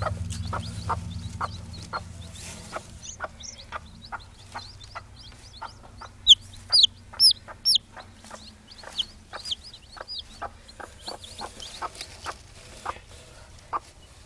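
Broody hen clucking softly and steadily on the nest, about two to three short clucks a second, while newly hatched chicks peep; a few loud, high chick peeps stand out about six to eight seconds in.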